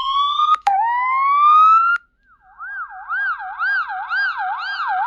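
Ambulance siren sound effects played one after another. First a siren tone glides steadily upward, restarts once just under a second in, and stops about two seconds in. After a short gap, a second siren wails up and down about twice a second.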